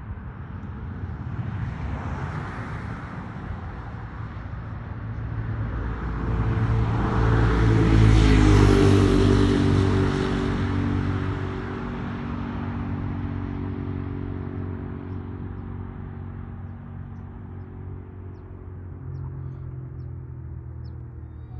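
Road traffic passing. One vehicle goes by close, loudest about eight or nine seconds in, its engine note falling in pitch as it moves away. A smaller pass comes about two seconds in, under a steady traffic rumble.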